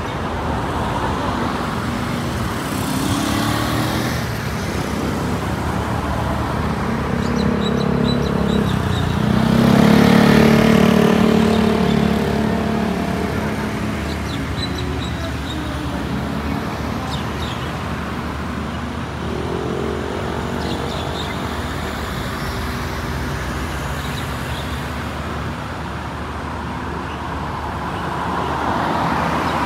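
Street traffic: car and other vehicle engines running and passing on the road, with the loudest vehicle passing about ten seconds in.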